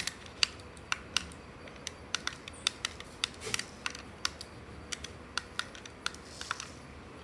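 Irregular sharp plastic clicks and taps, a few a second, from handling a small toy RC car and its controller.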